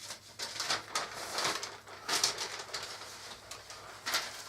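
Paper rustling and sliding in short, irregular strokes as a glued jigsaw puzzle is turned over and worked onto a backing sheet.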